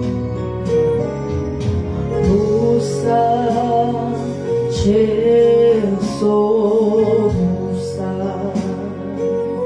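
Gospel music: a singing voice carrying a melody over instruments and a bass line.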